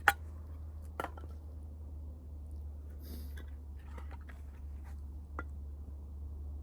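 Wood bonfire crackling, with a sharp loud pop right at the start and a few sparser pops after it. There is a brief hiss about three seconds in and a steady low rumble underneath.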